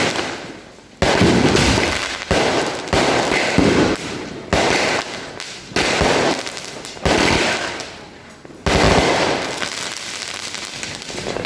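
Aerial fireworks bursting: about nine sharp bangs at uneven intervals of roughly half a second to a second and a half, each trailing off in a fading crackle and echo.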